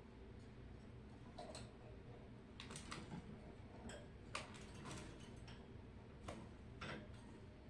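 Pet birds making faint, short clicks and chips, about a dozen at irregular intervals, over a low steady room hum.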